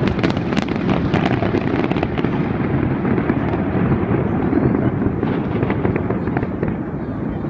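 Fireworks display going off in a dense, continuous barrage of bangs and crackles over a low rumble, thickest in the first couple of seconds and thinning a little after.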